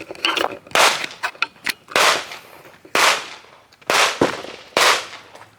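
Gunshots at a shooting range: five shots about a second apart, each trailing off in a short echo, with a few faint clicks between them.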